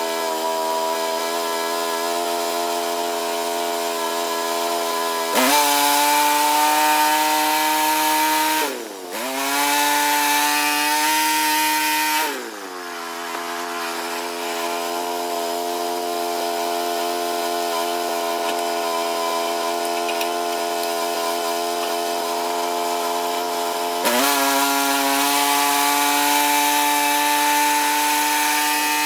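Portable bandsaw mill's gas engine running steadily, with the band blade cutting through a poplar log in louder, hissier spells: one starting about five seconds in with a short break near nine seconds, ending about twelve seconds in as the engine note drops, and another starting near the end.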